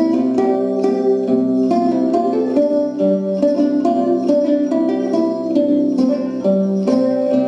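Recorded instrumental dance music with a steady beat, plucked strings over held low notes.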